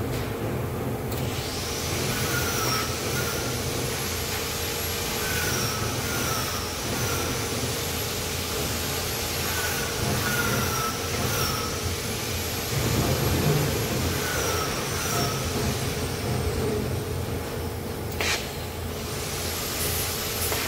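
TIG (argon) welding arc on stainless steel: a steady hiss that starts abruptly about a second in and cuts off sharply near the end. A steady machinery hum runs underneath.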